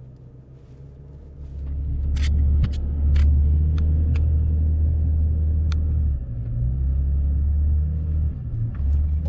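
Pickup truck climbing a steep snowy hill, heard from inside the cab: a deep engine and road rumble that swells about a second and a half in and holds under load, with a few sharp knocks scattered through it.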